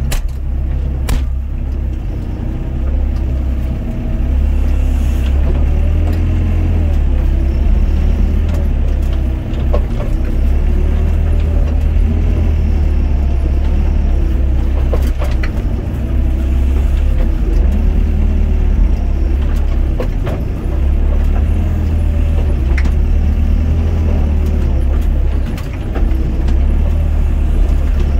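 Doosan DX55 mini excavator's diesel engine running steadily under load, heard from the cab. A whine rises and falls as the hydraulics work the boom and bucket, with a few sharp knocks along the way.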